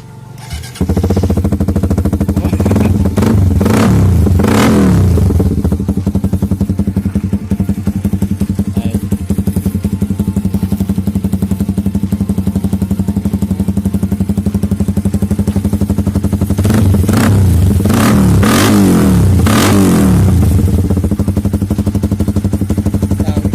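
Suzuki GSX-S150's single-cylinder engine running through a Kou Mahachai open-pipe exhaust, idling loud and steady with short throttle blips a few seconds in and again around seventeen to twenty seconds in.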